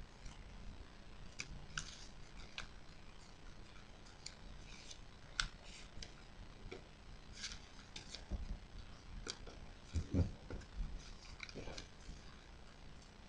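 Origami paper rustling and crinkling as a crane is folded and its creases pressed, in short crisp crackles scattered irregularly. A few dull knocks come about two thirds of the way in.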